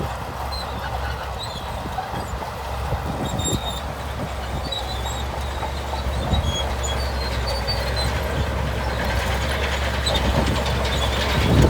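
Shantui crawler bulldozer working: its diesel engine runs with a steady low rumble while the steel tracks clatter, getting louder near the end.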